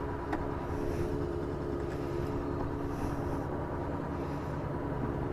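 Honda CB500F's parallel-twin engine idling steadily, with a few brief soft rustles over it.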